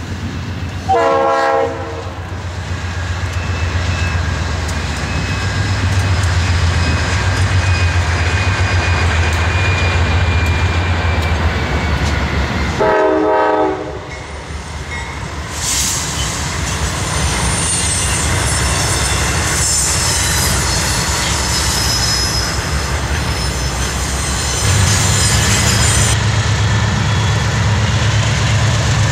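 Norfolk Southern GE diesel freight locomotives rumbling past, with a locomotive horn sounding two short blasts about twelve seconds apart. In the second half, a high-pitched squeal of steel wheels on the rail.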